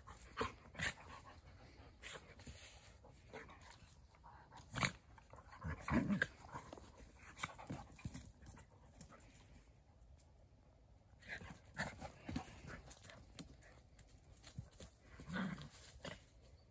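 Two dogs play-fighting: short low growls and grunts in irregular bursts, loudest about six seconds in and again near the end, mixed with scuffling and panting.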